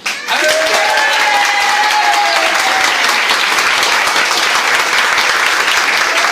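A group of people applauding: clapping breaks out suddenly and holds steady, with a few voices calling out over it in the first couple of seconds.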